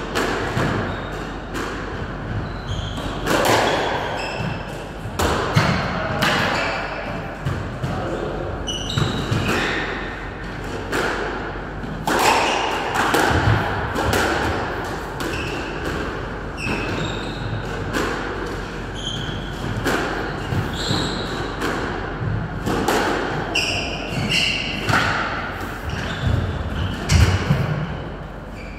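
Squash rally: the ball striking rackets and the front and side walls in a fast, irregular series of hard knocks, with shoes squeaking briefly on the wooden court floor between shots.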